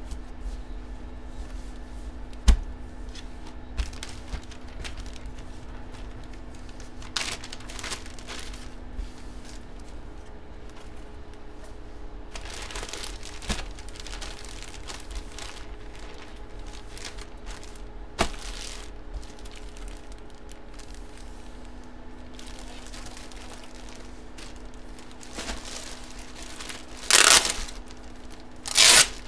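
Clear plastic bag around a sports jersey crinkling and rustling as it is handled and unwrapped, in scattered bursts with two loud crinkles near the end. A couple of sharp knocks come about two seconds in and midway, over a faint steady hum.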